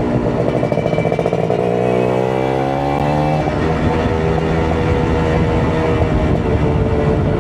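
Kawasaki Ninja RR 150 two-stroke single-cylinder motorcycle engine under way. The revs climb over the first few seconds, then hold at a steady cruise.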